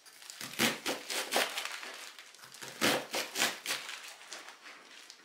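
Chef's knife dicing a red onion on a cutting board: crisp crunching cuts, each ending in a knock of the blade on the board, in two runs of quick strokes with a short lull between.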